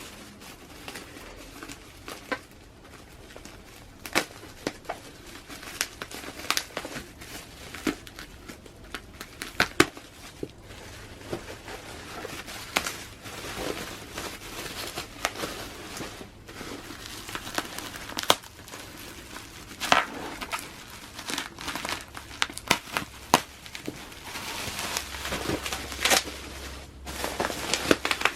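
Packaging wrap being handled, crinkled and torn open by hand, with an irregular run of crackles and sharp snaps throughout.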